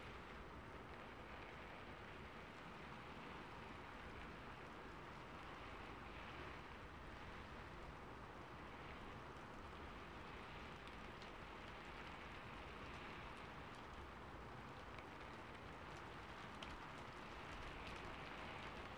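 Steady rain falling on a rooftop: a faint, even hiss with scattered light drop ticks.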